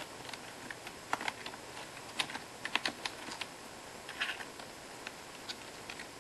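Computer keyboard keys clicking irregularly as a cat's paw presses them. The presses come scattered, thickest in the first half, with a short cluster of them about four seconds in.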